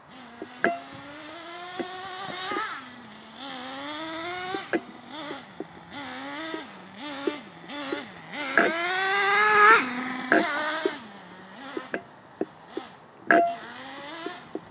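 Small nitro glow engine of a Traxxas T-Maxx RC monster truck running and revving up and down with the throttle as it drives. Its pitch climbs to the longest, loudest rev about nine seconds in, then drops sharply back to a low idle.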